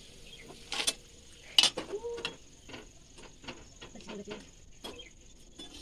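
Metal utensils clinking: a slotted steel ladle knocks against a steel kadhai and a steel plate as fried papads are lifted out. There are two sharp knocks, under a second and about a second and a half in, then a string of lighter clinks.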